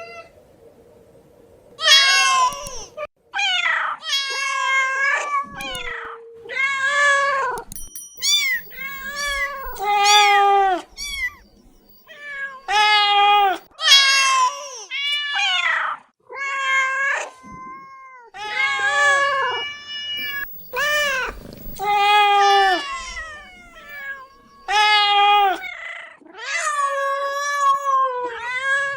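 Domestic cat meows, a long series of drawn-out calls whose pitch rises and falls, coming about one a second with short gaps between.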